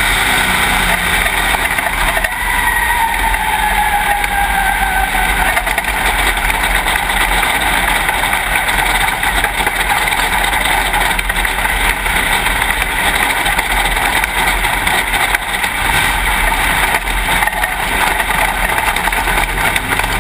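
Dirt late model race car's V8 engine heard from inside the cockpit, over heavy wind and chassis noise. The engine note falls during the first few seconds, then the car runs on steadily.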